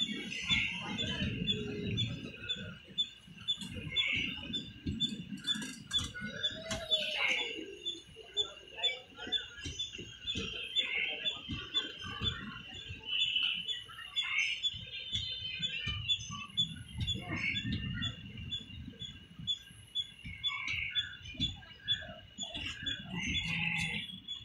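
Passenger train coaches rolling slowly past with a low rumble and irregular wheel knocks, while birds chirp repeatedly overhead.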